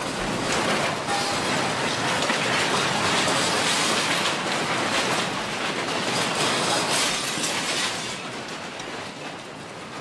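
Dense rattling and clattering of a street's buildings and fittings shaking in an earthquake, easing off about eight seconds in.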